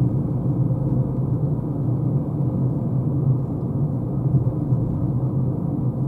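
Steady road and tyre rumble inside the cabin of a Renault Zoe electric car cruising at about 50 km/h, with no engine note.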